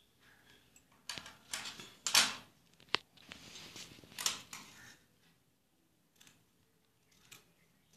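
Scissors snipping through two layers of cloth, cutting a kurta's neckline curve: a string of sharp blade clicks and short rasps of cloth, with the cloth rustling as it is moved. The cuts come close together at first and thin out after about five seconds.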